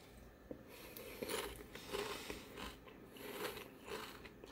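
Chewing a mouthful of Whole Shabang potato chips: faint, repeated crunches, about one or two a second.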